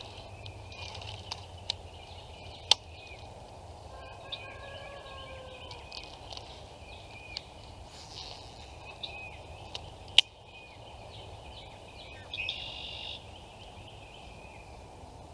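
Outdoor ambience with birds calling in short chirps throughout, a faint falling call about four seconds in, and two sharp clicks, one near the start and one about ten seconds in.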